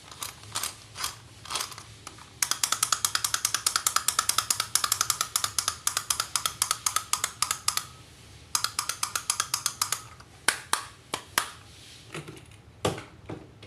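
A fast, even run of sharp clicks, about eight a second, lasting several seconds. A shorter run follows, then a few single clicks near the end.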